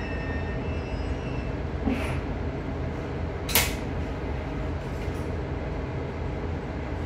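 In-cabin running sound of a KiHa 110 series diesel railcar: a steady low rumble of the engine and wheels on the track. A sharp click comes about three and a half seconds in, with fainter ones around two and five seconds.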